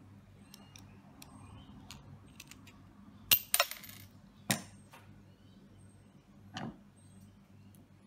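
Small metal lock-cylinder parts clicking and clinking as a die-cast lock cylinder is taken apart by hand. There are a few faint ticks, then a sharp metallic clink a little over three seconds in, two more over the next second and a half, and a softer one near seven seconds, over a low steady hum.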